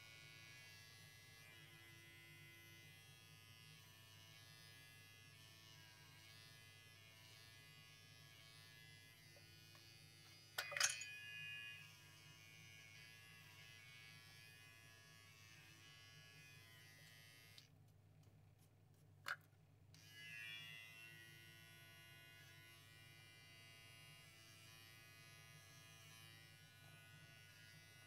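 Electric hair clippers running with a faint, steady buzz as they trim a Persian cat's fur. A sharp click sounds about ten seconds in, and a smaller one a little before the twenty-second mark.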